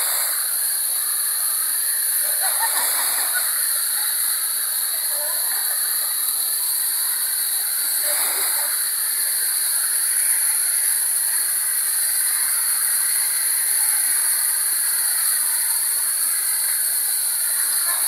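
Small waterfall spilling over rock ledges: a steady rush of falling water.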